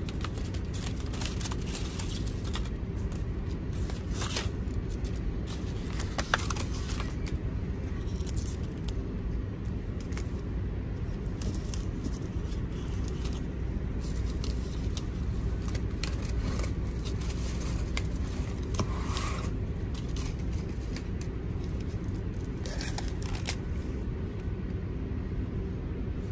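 Paper wrapping and ribbon rustling and scraping, with scattered light clicks, as a boxed lunch is unwrapped and opened, over a steady low hum.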